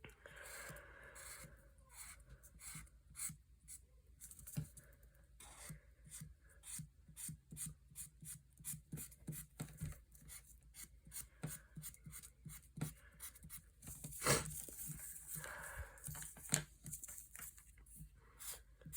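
A drawing tool scratching over paper in quick, short, irregular strokes, tracing an outline. It is faint, with one louder stroke about fourteen seconds in.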